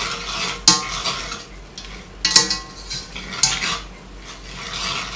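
A spatula stirring and scraping a milk-and-flour sauce with mushrooms and ham in a stainless steel pot, worked steadily so the sauce does not lump. Three sharp knocks against the pot ring out during the stirring.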